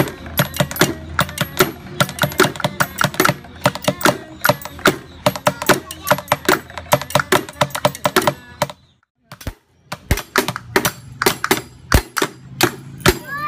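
Improvised percussion: objects tapped and struck in quick, uneven strokes, about four a second. The tapping stops for about a second past the middle, then starts again.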